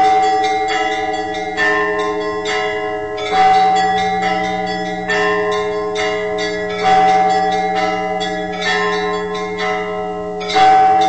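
Church bells ringing a continuous peal. Smaller bells are struck a few times a second over a held ringing tone, and a heavier stroke comes about every three and a half seconds.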